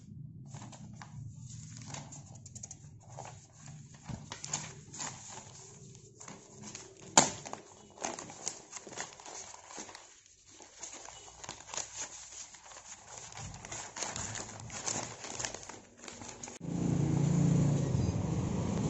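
Paper rustling and crackling as printed letters and a paper envelope are handled and leafed through, with one sharp snap of paper about seven seconds in. Near the end a steady, louder low rumbling noise starts abruptly and covers the rustling.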